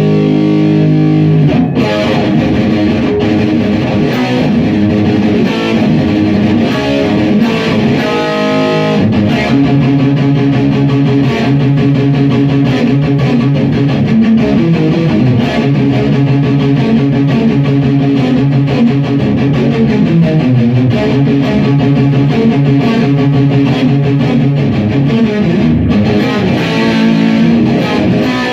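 Electric guitar played loud through a Marshall JCM2000 60-watt valve amp. It moves through quick, changing notes for the first several seconds, then settles into long held, ringing notes and chords.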